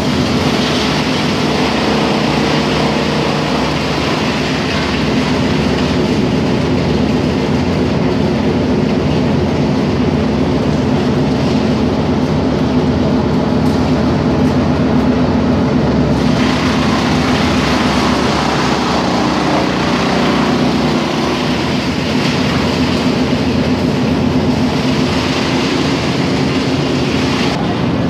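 Industrial wood chipper line running steadily: the chipper, rotating drum and belt conveyor make a continuous loud mechanical drone with a steady hum, with a rushing rattle of chips that grows stronger about halfway through.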